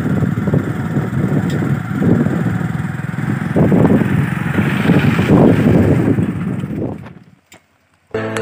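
Motorcycle running while ridden over a rough, stony dirt road, heard from on the bike as an uneven low rumble. It fades out about seven seconds in, and after a moment of silence music starts near the end.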